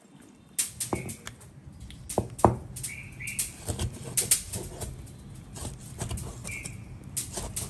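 Cleaver knocking against a plastic cutting board in quick, irregular strokes as it slices raw moray eel meat. Short bird chirps come through a few times.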